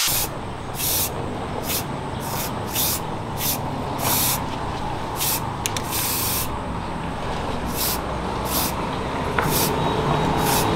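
Aerosol spray can hissing in about a dozen short bursts, each lasting a fraction of a second, over a steady low rumble.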